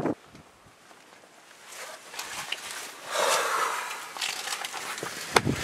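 Fabric and gear rustling and being handled, loudest around the middle, with a sharp click near the end.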